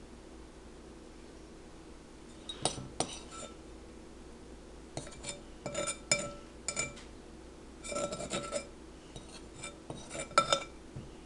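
Clinks against a glass mixing bowl as cookie dough is scooped out by hand, coming in four short clusters with the sharpest clink near the end.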